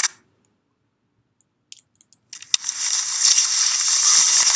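Recorded skiing sound effect playing back: a hissing swish of skis carving across snow that builds up over about two seconds and then cuts off abruptly. A short sharp sound comes right at the start, and a few faint clicks come just before the swish.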